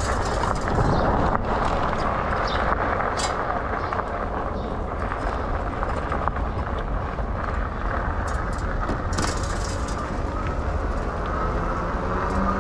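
Lectric XP e-bike being ridden: steady rushing wind on the action camera's microphone with tyre and road rumble, and a few small clicks and rattles from the bike.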